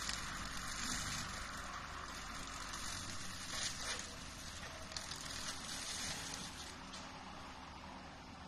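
Excavator-mounted Brush Wolf 4800X brush cutter shredding thick brush and saplings, a dense hissing crackle of cut wood and leaves over the excavator's engine running steadily. The cutting swells louder a few times, then eases off near the end.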